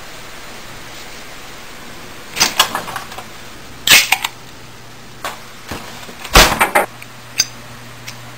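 Several bursts of sharp metallic clicks and clacks, the loudest cluster a little after halfway: a chrome flip-top lighter being handled, its lid snapping open and its wheel struck.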